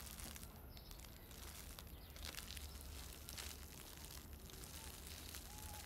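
Quiet outdoor background: a low steady rumble with a few faint scattered ticks, and a faint short high call near the end.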